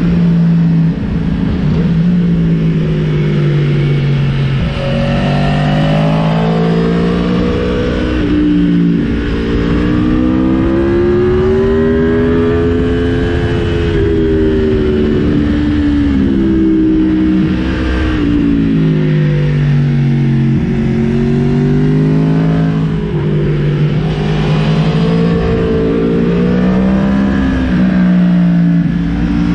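Aprilia Tuono V4 motorcycle's V4 engine, heard from the rider's seat, pulling hard and easing off again and again, its pitch rising and falling over and over. A steady rush of wind noise lies under it.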